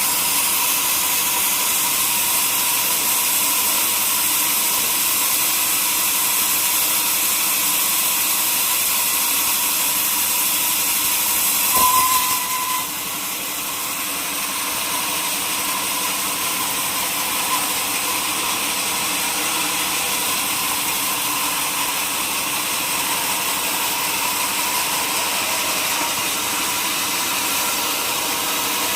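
Sawmill band saw running steadily through a hardwood log, a continuous hiss with a high steady whine. It briefly swells about twelve seconds in, then runs on a little quieter.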